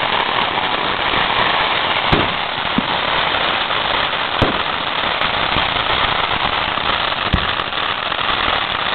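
Many fireworks going off at once, ground fountains and firecrackers: a dense, continuous crackle with three louder bangs standing out, about two to three seconds apart.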